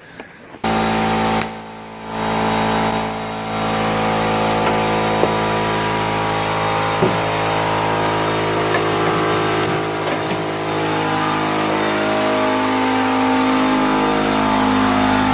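A motor running steadily with an even hum, starting abruptly about a second in and dipping briefly just after.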